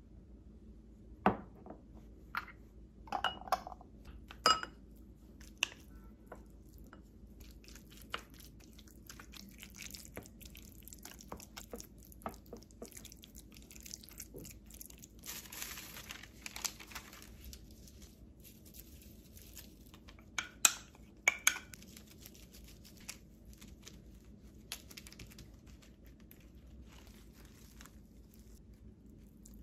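Food preparation in a glass bowl. A wooden spoon clinks against the glass bowl and jar several times as pesto is scooped into yogurt. Then comes a longer stretch of wet scraping and squishing as tuna is stirred into the pesto yogurt, followed by two more sharp clinks of the spoon on the bowl.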